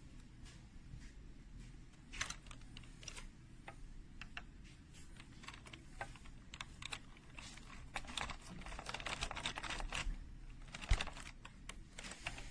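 Computer keyboard keys clicking irregularly, thickening into a dense run of clicks about eight seconds in, with one louder knock near the end.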